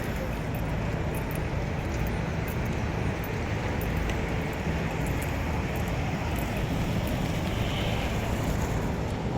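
Steady city street traffic noise: an even low rumble of passing vehicles.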